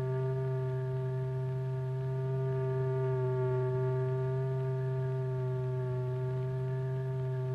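Steady electronic test tone: a low, buzzy note with a ladder of overtones, held unbroken with a slight waver in pitch. It is the note that sets the powder-covered membrane vibrating.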